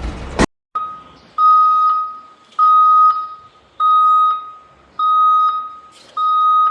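Vehicle reversing alarm beeping: a steady electronic tone repeating evenly about once every 1.2 seconds, six beeps in all. It starts just after an engine and mechanical noise cuts off abruptly.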